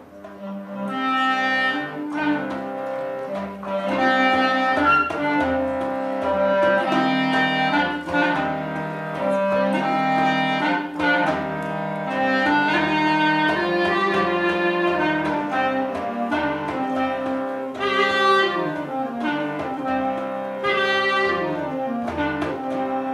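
Instrumental music: a clarinet plays a melody over sustained harmonium chords, with a frame drum keeping a soft, steady low beat about twice a second.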